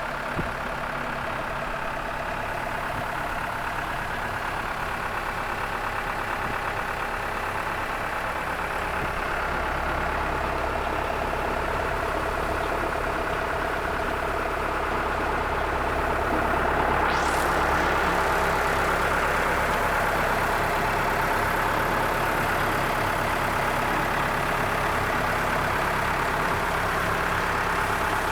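Tractor engine running steadily, driving a Kilworth pan concrete mixer through its PTO. It gets a little louder about two-thirds of the way through, with a short rising whine as it does.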